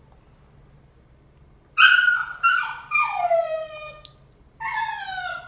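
A dog giving a series of four high cries, starting a couple of seconds in, each one sliding down in pitch.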